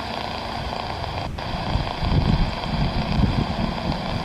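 Boeing 777's twin jet engines humming steadily at low thrust as the airliner taxis, with gusts of wind rumbling on the microphone from about two seconds in.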